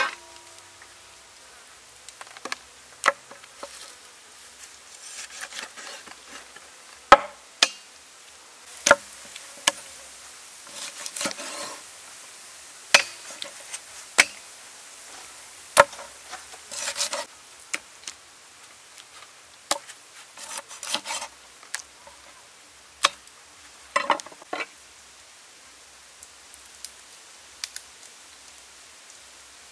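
Scattered sharp knocks and clinks of food being prepared by hand, with a cleaver and raw chicken pieces handled on a wooden table and a stainless steel tray, and short bouts of rustling and scraping between them.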